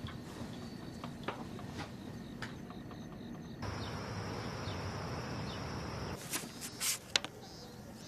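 Several sharp knocks and clacks of a white plastic picture frame being handled and set down on a hospital overbed table, after a stretch of quiet room tone and a steady high-pitched hum with a hiss.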